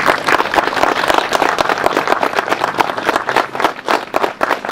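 A crowd of guests applauding, with dense, steady clapping.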